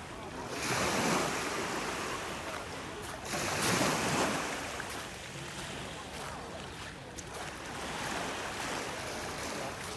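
Sea waves washing onto the beach: a swelling rush of surf that rises about a second in and again, louder, around four seconds, then a gentler wash near the end.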